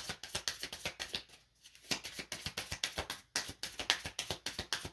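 A deck of oracle cards being shuffled by hand: a quick run of soft card clicks and slaps, with a short pause about a second and a half in.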